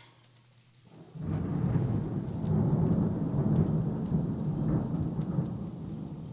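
Thunder of a supercell thunderstorm: a loud, low rumble that starts suddenly about a second in and rolls on, slowly fading.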